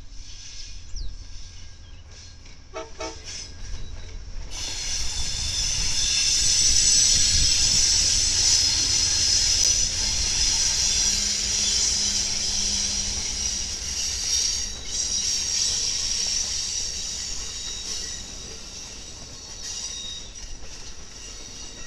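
Amtrak passenger train, a diesel locomotive hauling bilevel Superliner cars, passing close by. A brief horn note sounds about three seconds in; then wheel-on-rail noise swells as the locomotive goes by and carries on as the cars roll past.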